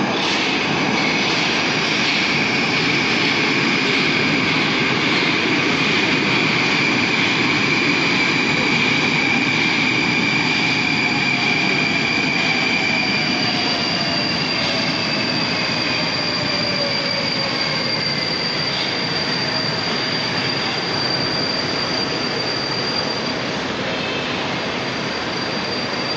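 A Moskva-2020 metro train arriving at an underground station: a loud rush of the train running in, with a steady high whine that gives way, about halfway through, to an electric whine falling in pitch as the train brakes to a stop.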